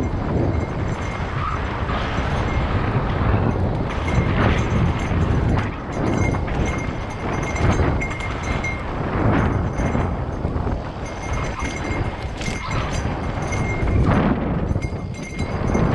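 Mountain bike descending a rocky dirt singletrack: tyres rumbling over dirt and rock with frequent knocks and rattles from the bike and camera mount, and wind buffeting the microphone.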